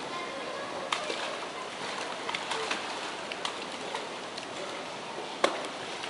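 Steady hissing background with scattered sharp clicks, two louder ones about a second in and near the end, and a few short faint chirps.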